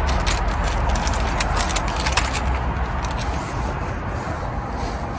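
Crackly rustling and scraping of parchment paper being handled as whole herring are laid out on it, with many short sharp crackles over a steady low rumble.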